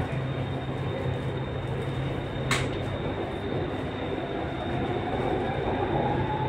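Underground metro train running, heard from inside the carriage as it pulls away from the platform: a steady rumble and hiss with a thin high tone over it. A brief sharp sound comes about two and a half seconds in, and from about two-thirds of the way through a faint rising whine sets in as the train gathers speed and the noise grows a little louder.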